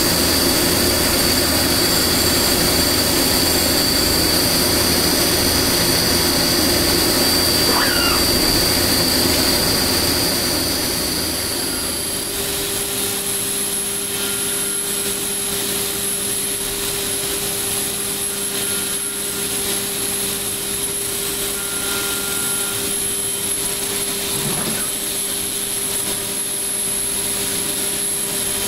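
Leadwell V-20iT CNC machining centre milling a brass part: steady spindle whine over cutting noise. About eleven seconds in, the whine shifts pitch and the sound gets a little quieter.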